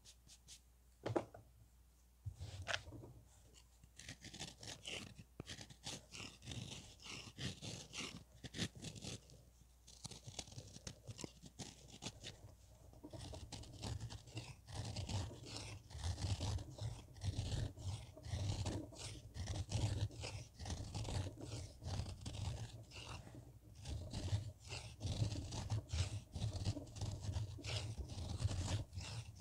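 A knife cutting and scraping into a block of pressed powder, which crunches and crumbles into loose powder. A couple of single crunches come first, then from about four seconds in a quick, continuous crunching and scraping that grows denser and louder toward the end.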